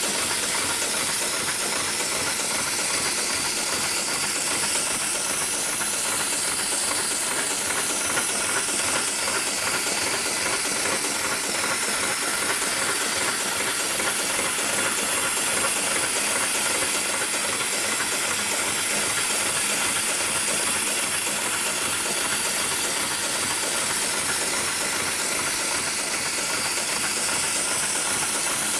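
GLK911 heavy-duty programmable pattern sewing machine running steadily: rapid, even needle strokes under a constant hiss.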